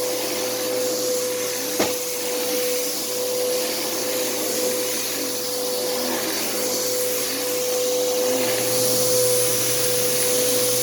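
Bissell CleanView upright vacuum cleaner running steadily over carpet, a constant motor whine over a rushing hiss. A single sharp click about two seconds in.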